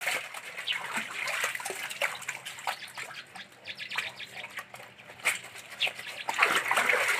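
Water sloshing and splashing in a plastic basin as wet clothes are scrubbed and rubbed together by hand, in quick irregular strokes. It is loudest near the end.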